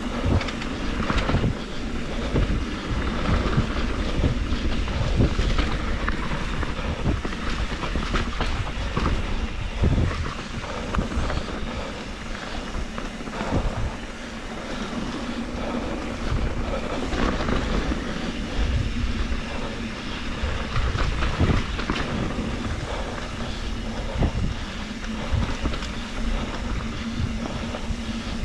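Trek Slash 7 full-suspension mountain bike ridden down a dirt flow trail: tyres rolling on the dirt and the bike rattling and clattering over bumps, with wind rumbling on the microphone.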